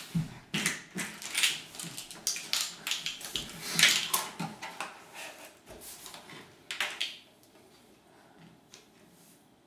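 Irregular clicks, rattles and rustles from handling a Morton Salt canister and a plastic measuring spoon while salt is poured out. The sounds stop about seven seconds in.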